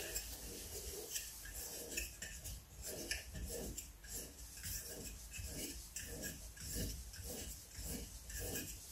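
Repeated hand-rubbing strokes against wood, about two a second, with no lathe motor running.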